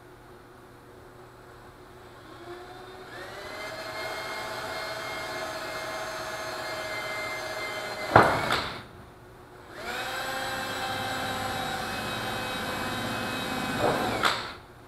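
Cordless drill drilling a pilot hole into an ultralight's wing tip. The motor spins up and runs with a steady whine. About eight seconds in there is a sudden loud burst as the bit bites, and then it stops. After a short pause it runs again and ends with another brief loud burst before stopping.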